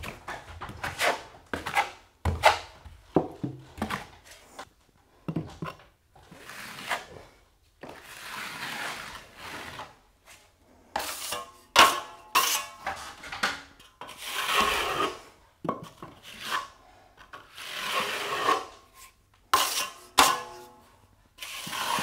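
Steel drywall knife spreading and scraping setting-type joint compound along a ceiling-to-wall joint, in irregular rasping strokes, some brief and some about a second long, with short pauses between them.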